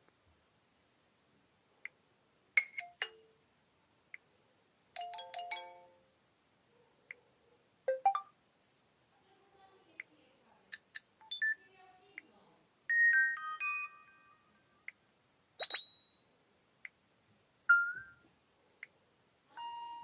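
Preloaded message and notification tones of an LG K10 smartphone played one after another: a series of brief chimes of a few quick notes, and single blips, with short gaps between them.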